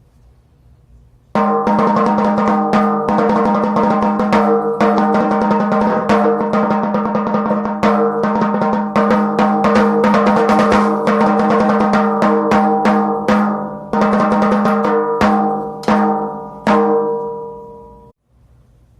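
Snare drum played in rapid strokes and rolls, starting about a second in, the drumhead ringing on between hits. The playing breaks off a few times near the end, each time letting the ring die away.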